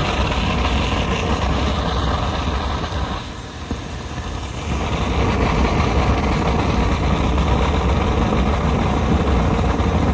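Insulation blowing machine running, blowing Rockwool mineral-wool fibre through the hose into a wall cavity: a loud, steady rush over a low hum. It drops away for a second or two about three seconds in, then comes back up to full.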